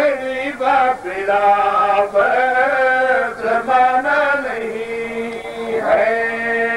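A man chanting a devotional Urdu qasida in long, melodic phrases that rise and fall. About two-thirds of the way in, the voice settles on one steady held note.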